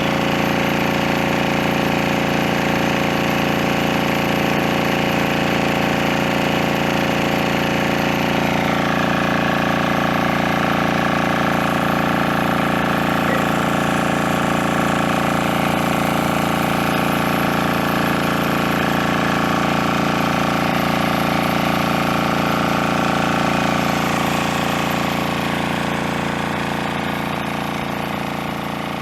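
Engine-driven water pump running steadily, a continuous loud machine drone while it sucks water out of a treatment tank. The sound fades out over the last few seconds.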